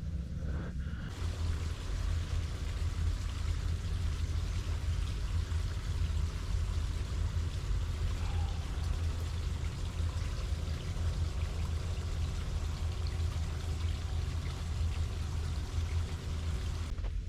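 Water running steadily, with a steady low rumble underneath.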